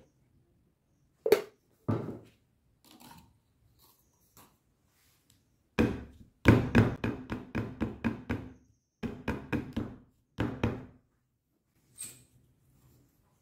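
Plastic cups knocked and set down on a ceramic plate, with two single knocks early and then, from about six seconds in, a quick run of clicks and taps for several seconds as the filled cups are handled and stacked.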